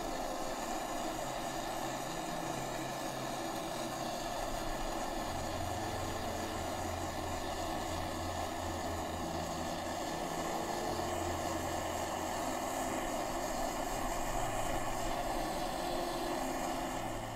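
Acetylene torch flame burning steadily with a continuous rushing hiss while melting pewter in a ceramic crucible.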